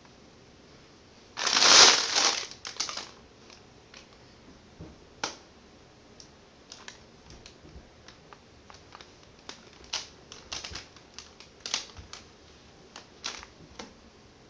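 Scratching and rustling as a hand scratches a cat's fur while the cat shifts on a carpeted cat tree: a loud scraping rustle about a second and a half in, then scattered short clicks and scratches.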